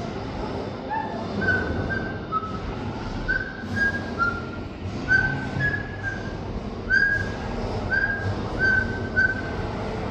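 Parrot whistling a string of about a dozen short, clear notes, one or two a second, each held briefly at a slightly different pitch.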